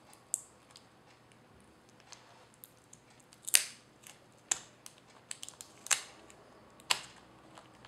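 Yellow adhesive tape being picked and peeled off a laptop LCD panel's cable connector, giving about five sharp clicks and crackles with small ticks between them.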